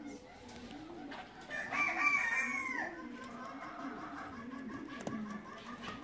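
Pigeons cooing, low and repeated, with a rooster crowing once about one and a half seconds in. The crow lasts about a second and a half and drops in pitch at its end. A rapid run of higher clucking notes follows.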